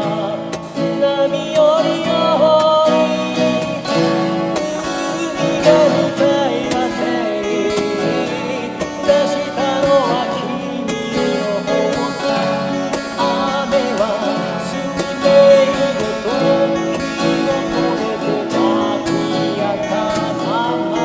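An Ovation Super Adamas acoustic guitar strums chords, with a melody line over it that bends and slides in pitch.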